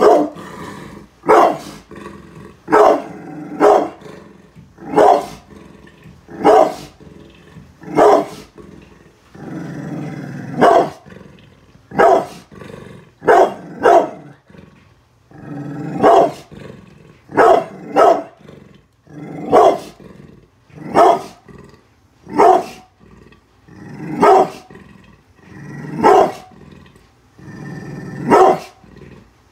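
Brindle pit bull barking hard, about once a second with some barks in quick pairs, and growling low between barks. Territorial warning barking at strangers outside the house.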